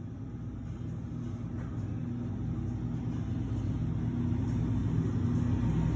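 Steady low mechanical hum from a commercial freezer case's refrigeration unit, growing gradually louder.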